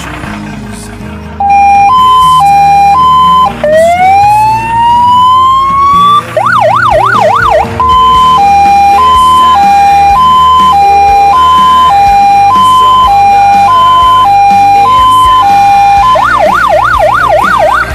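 Electronic siren on an Iveco fire truck, very loud, coming on about a second and a half in: one long rising wail, a short burst of fast yelp, then a steady two-tone hi-lo alternating between a lower and a higher note, switching back to the fast yelp near the end.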